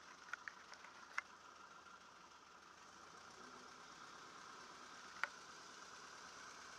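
Marquart Charger biplane's engine idling while it taxis, a faint steady hum. A few sharp clicks sound in the first second and one louder click about five seconds in.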